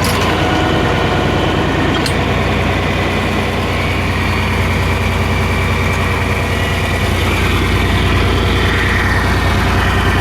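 Tractor engine running steadily at a constant speed, with a couple of brief clicks near the start.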